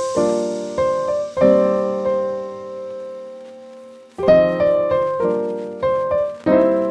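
Background piano music: chords struck one after another, with one left ringing and fading for a couple of seconds in the middle.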